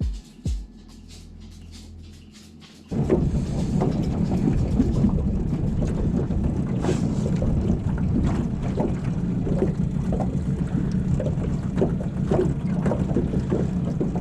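Wind buffeting the microphone on a boat: a loud, steady rumble that starts suddenly about three seconds in, with scattered small knocks. Before it there is a fainter low hum with two short thumps.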